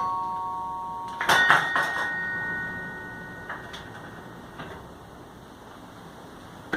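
Carillon bells: a few notes are struck about a second in and ring on, slowly fading away. There are a few faint clicks while they fade, and a sharp clunk at the very end.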